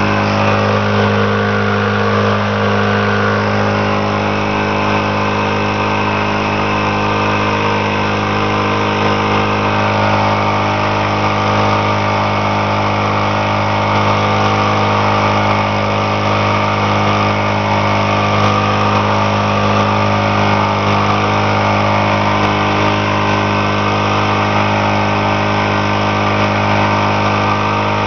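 Old 60 hp Mariner outboard motor running steadily under way, holding one even pitch, with the rush of its churning wake beneath it.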